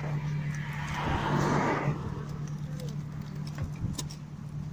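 Car engine running with a steady low hum, heard from inside the car. A short rush of noise swells and fades about a second in, and there are a few light clicks.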